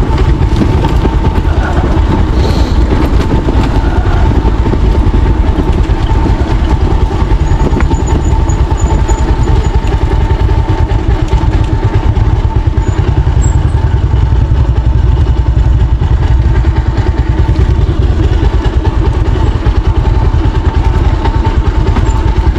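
Motorcycle engine running steadily with a low rumble while riding along a trail.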